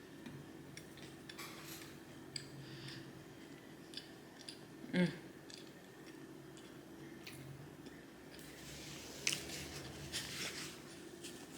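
Close-miked mouth sounds of eating: chewing with crisp, crackly bites and small wet clicks, denser towards the end, and a brief voiced sound about five seconds in.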